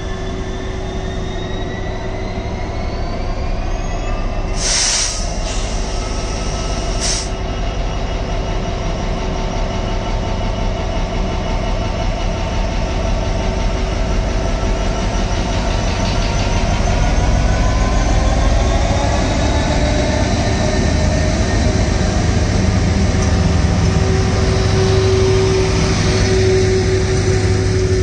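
Class 66 diesel locomotive's EMD two-stroke engine pulling a train away from a standstill, its pitch rising as it gathers speed, with two short sharp sounds about five and seven seconds in. The noise grows louder past the midpoint as the locomotive and coaches roll by close at hand.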